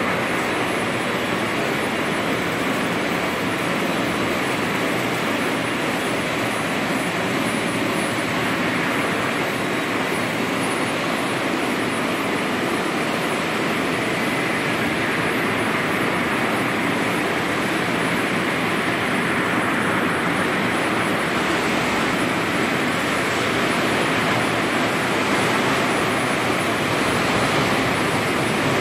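Machinery of a frozen French-fries production line running, a steady even rushing hum with no distinct strokes or changes.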